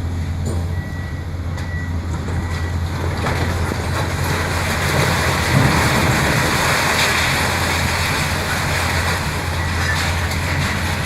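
Heavy demolition machinery running: a steady low engine drone under a noisy mechanical rumble, with a few faint knocks and a brief thin squeal early on.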